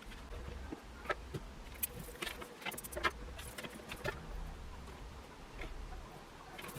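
A pen marking on paper: a run of irregular short strokes and taps, most of them in the first four seconds.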